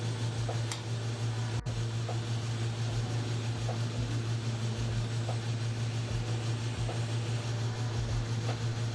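Steady low electrical hum of a TIG welding machine idling with the arc off between tacks.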